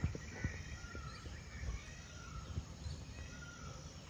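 Quiet outdoor ambience of short, repeated bird chirps over a low steady rumble, with a few faint taps.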